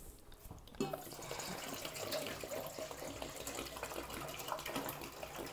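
Water pouring from a plastic jug into a stainless steel dog bowl, starting about a second in and running steadily.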